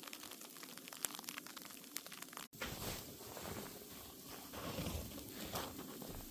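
Sleet ticking and crackling on an icy crust, a dense patter of fine clicks. After a break about two and a half seconds in, it comes back louder and crunchier, with low thumps underneath.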